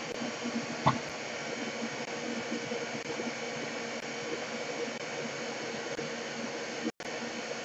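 Steady background hiss with a faint low hum, broken by one sharp click about a second in and a momentary dropout near the end.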